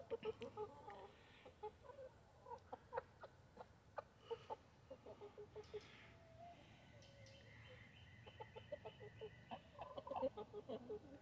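Backyard chickens clucking softly: short, low clucks in scattered quick runs, busiest near the end.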